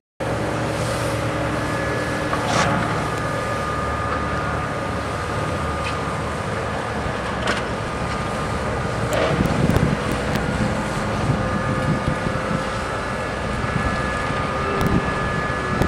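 Steady outdoor traffic and machinery noise with a constant mechanical hum, broken by a few sharp knocks.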